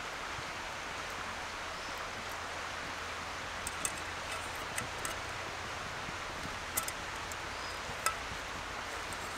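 Steady outdoor background hiss, with a few light clicks from a stainless frying pan and its clip-on handle being handled.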